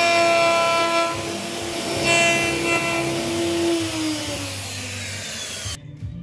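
Hand-held electric wood router running at speed as its bit cuts along the edge of a hardwood board, giving a steady high whine over a rasping cutting noise. Near the end its whine falls in pitch as the motor winds down.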